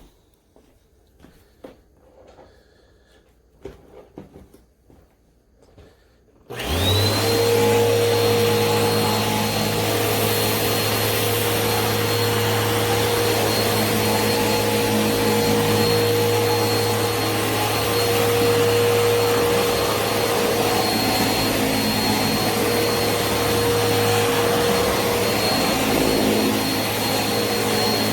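After a few seconds of faint handling clicks, a Eureka PowerSpeed bagless upright vacuum cleaner is switched on about six seconds in. Its motor spins up within a moment and then runs steadily with a high whine over a low hum, as it picks up spilled sugar and flour on a hardwood floor.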